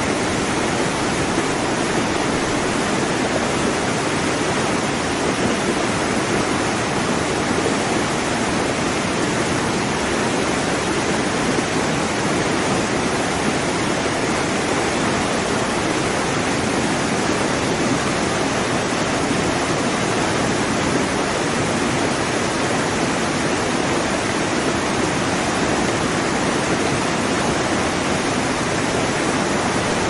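Waterfall: a steady, even rush of falling water that does not change.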